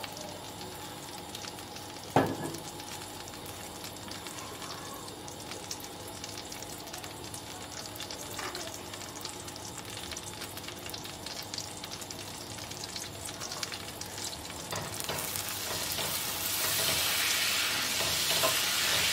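Butter melting in hot oil in a stainless steel pot, sizzling with a steady fine crackle, with one sharp knock about two seconds in. Near the end the sizzle grows louder as a wooden spatula stirs the fat.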